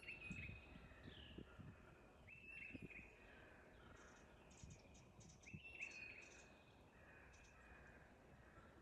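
Faint birdsong: three similar calls, each a quick rise in pitch that levels off and holds for under a second, about three seconds apart, with fainter short chirps in between.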